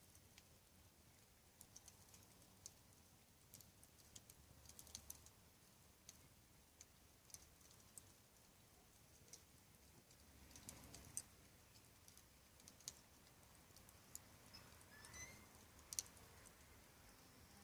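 Wood campfire crackling faintly, with scattered sharp pops and snaps at irregular intervals. About fifteen seconds in there is a brief faint whistle.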